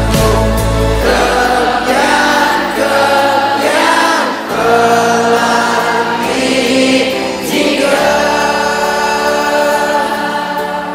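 Background music with a choir singing slow, held notes; a deep bass drops away about a second in.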